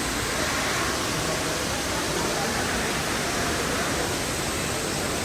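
Steady rush of water falling down a multi-storey indoor waterfall.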